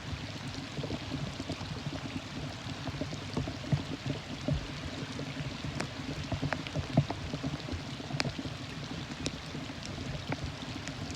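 Steady rain falling, with scattered sharp drip and tap sounds throughout.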